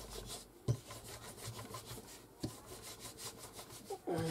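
Hands working and rolling thin strands of polymer clay on a plastic cutting mat: faint, irregular rubbing with a couple of light taps.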